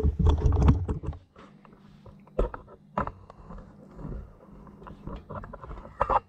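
Hard plastic clicking and knocking as a DeWalt DWV9000 quick-connect dust adapter is slid over a power tool's dust-port collar and twisted to lock. In the first second there is a loud low rumble of handling close to the microphone.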